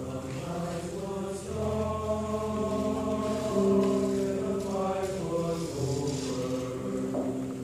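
Male chorus singing slow, sustained chords, the voices holding each chord for a second or two before moving together to the next.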